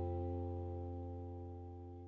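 Background music: a country song's final held chord ringing out and fading steadily away.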